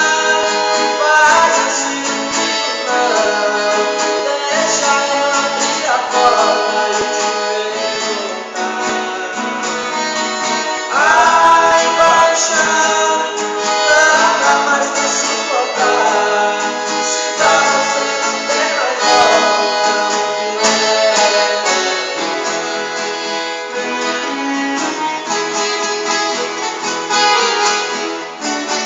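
Accordion playing a melody in long held notes over a strummed acoustic guitar (violão): an instrumental passage of a sertanejo song.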